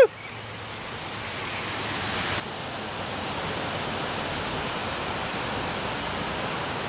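Steady rush of flowing river water, which dips abruptly about two and a half seconds in.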